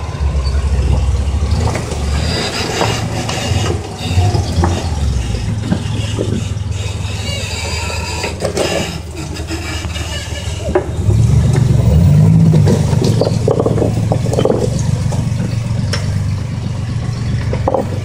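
Rock-crawler buggy's engine running at low revs as it crawls over boulders, the engine rising in pitch and getting louder about eleven seconds in under load on the climb. Scattered knocks from the buggy working over the rock.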